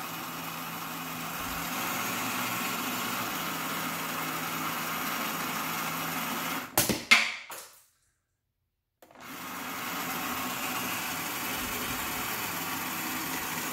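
Ideal Fighter Jet toy's electric motor running with a steady hum. A few sharp clicks sound about seven seconds in, the sound drops out for about a second, and the hum resumes.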